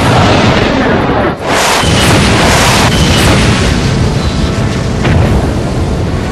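Cartoon sound effect of a plasma-beam blast striking an energy shield: a loud explosion from the start, a short break about a second and a half in, then a second blast that keeps rumbling and slowly eases off.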